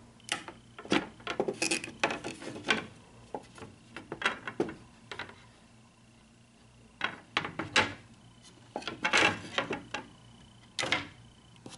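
Wooden slats of an IKEA Luröy slatted bed base knocking and clattering as they are lifted and handled. The knocks come in irregular bunches, with a pause of about a second and a half in the middle.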